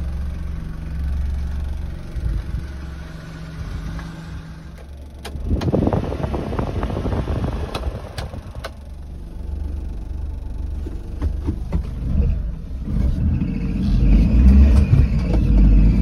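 Mitsubishi Minicab truck's three-cylinder engine idling steadily. About five seconds in the heater blower fan comes on with a rush of air, with a few clicks from the dashboard control sliders. Near the end a louder low rumble takes over.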